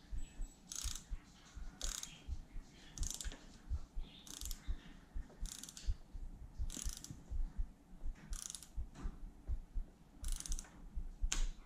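Ratcheting torque wrench working the stem faceplate bolts: about ten short runs of quick pawl clicks, roughly one a second, as the handle is swung back between tightening strokes.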